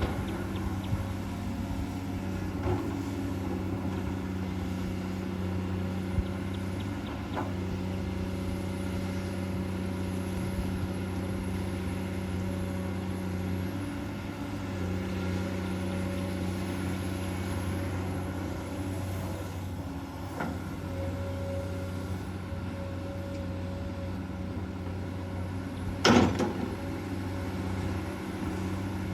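Komatsu PC200-8 hydraulic excavator's six-cylinder diesel running steadily as it digs, with a few light knocks and one loud knock near the end.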